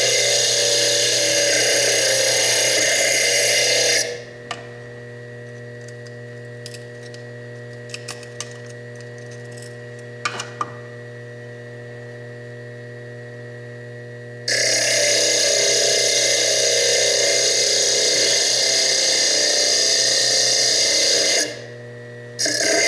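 Foredom bench lathe spinning a small diamond slitting disc, grinding loudly into fire agate. About four seconds in the disc comes off the stone and the lathe runs free with a steady hum and a few small clicks for about ten seconds, then the cutting resumes, with another short break near the end.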